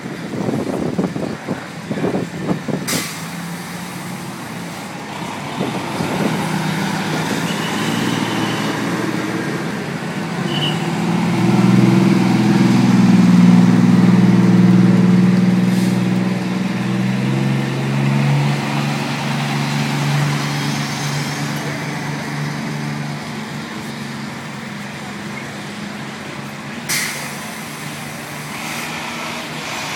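Diesel engines of fire engines and fire trucks driving past one after another; the engine sound swells loudest about halfway through as a heavy truck goes by. Short air-brake hisses come a few times, the clearest near the end.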